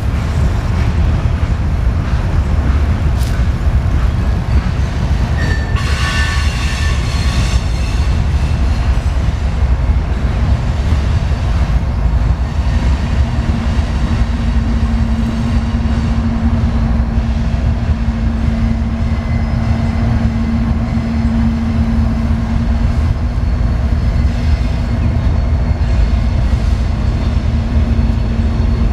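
Oxy-acetylene welding torch burning a neutral flame, a loud continuous low rush, while fusion-welding thin 20-gauge mild steel. A brief high whine with several pitches sounds about six seconds in, and a steady low hum joins from about halfway through.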